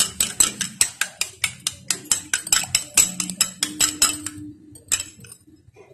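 An egg being beaten by hand in a small ceramic bowl: a utensil clinking against the bowl in quick, even strokes, about six a second, stopping about four and a half seconds in, followed by a couple of single clinks.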